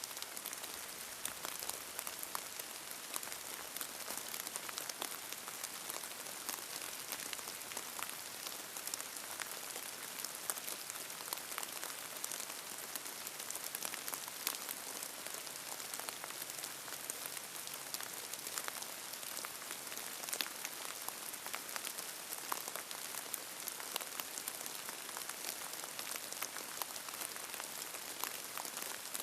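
Steady rain falling on a hard surface, with many small, sharp drop hits over an even hiss of rain.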